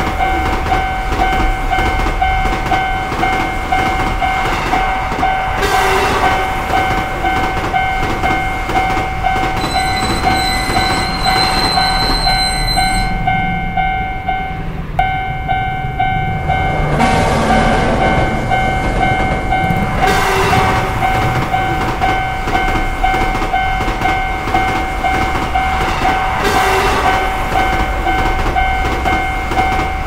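Shinkansen train running on the rails, a continuous rumble and rattle with swells every few seconds as it passes, over a steady ringing railroad crossing alarm that breaks off briefly about halfway through.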